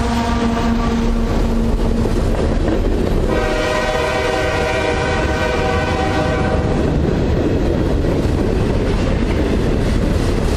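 Freight cars of a CSX mixed freight train rolling past close by: a steady rumble and clatter of wheels on rail. From about three seconds in, a train horn sounds once, held for about three and a half seconds.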